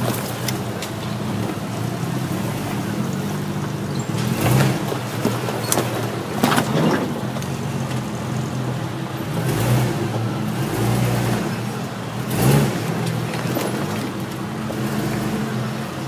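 Off-road 4x4 engine running at low revs, its pitch shifting slightly now and then, with a few sharp knocks or cracks over it.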